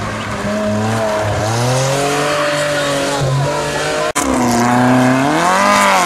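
Competition car engines revving hard through a tight slalom bend, the pitch rising and falling with throttle and gear changes. About four seconds in, a sudden cut switches to another car whose engine rises in pitch and then drops again.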